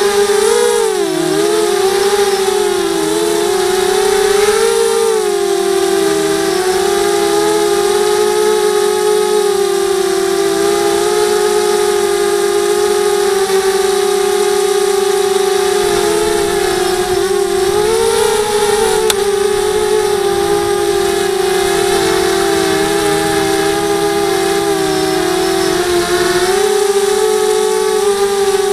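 Motors and propellers of a 250-size FPV racing quadcopter, heard through its onboard camera: a loud, steady whine that bends up and down in pitch as the throttle changes.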